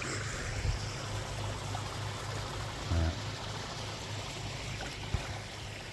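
Koi pond waterfall running, a steady splash and trickle of falling water. A short hum of a voice comes about halfway through, and a single click near the end.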